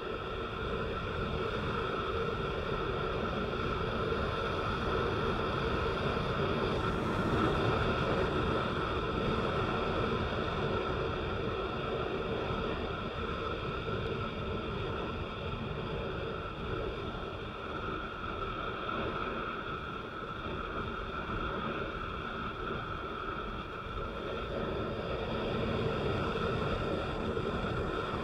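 A vehicle driving steadily on a wet road: a constant rush of engine and tyre noise over a low rumble, with no change in pace.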